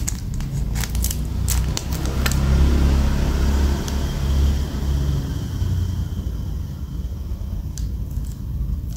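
A steady low rumble, swelling for a few seconds in the middle, with several sharp clicks in the first two seconds or so and a couple more near the end.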